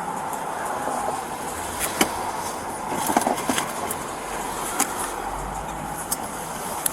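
Steady traffic noise with scattered clicks and knocks; the sharpest knock comes about two seconds in, and a short cluster follows about a second later.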